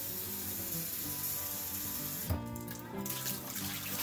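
Kitchen faucet running hot water into the glass carafe of a French press to pre-warm it; the water stops sharply a little over halfway through. Water then runs again near the end as the glass is tipped out into the stainless steel sink.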